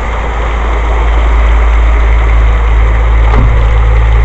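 Heavy rain pouring down in a steady downpour, with a constant low rumble under the hiss of the rain.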